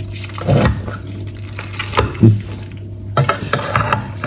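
Metal slotted spatula scraping and knocking against a baking dish while cutting into baked pasta and lifting out a portion: a few short clinks and scrapes, the loudest about two seconds in.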